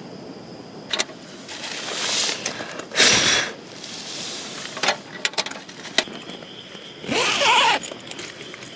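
A short puff of breath blowing out a candle lantern about three seconds in, between scattered clicks and rustling of handling. Near the end comes the zipper of a tent's mesh inner door being pulled.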